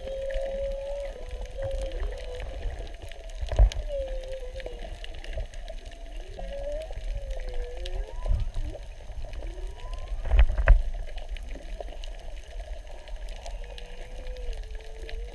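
Humpback whale song heard underwater: a string of long moaning calls that slide up and down in pitch, over a low rumble of water. Two thumps stand out, about three and a half and ten and a half seconds in, the second the loudest.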